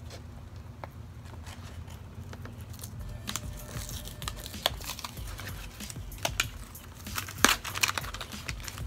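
A small cardboard box being opened by hand: its flaps and packaging rustle and crinkle, with scattered sharp clicks and scrapes and a louder flurry about seven and a half seconds in.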